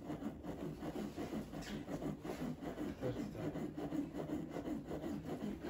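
Rhythmic chest compressions on a plastic CPR training manikin, its chest giving a dull rubbing knock with each push, repeated in quick succession.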